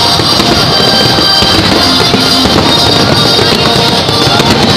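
Loud music playing, with fireworks shells bursting and crackling beneath it.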